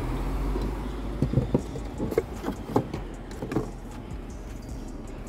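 A run of sharp clicks and knocks, about eight over a couple of seconds in the middle, from wiring and plastic trim being handled at the open tailgate, over a low steady rumble.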